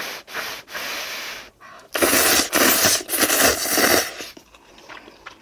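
A person slurping spicy instant ramen noodles: a short slurp at the start, then a longer, louder one of about two seconds with a rapid crackly texture.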